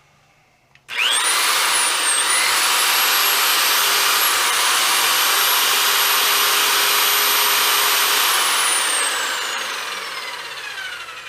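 Electric pipe threader driving a tubing roller: the motor starts suddenly about a second in with a rising whine, runs steadily, then is let off near the end and winds down with a falling whine.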